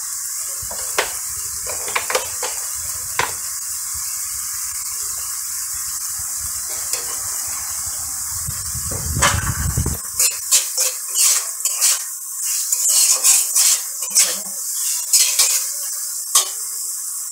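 Fig pieces frying in spiced mustard oil in an aluminium kadai, sizzling steadily while a metal spatula stirs them, scraping and clinking against the pan. The stirring clatter is sparse at first and comes thick and fast from about halfway. The masala's water is cooking off, leaving it nearly dry.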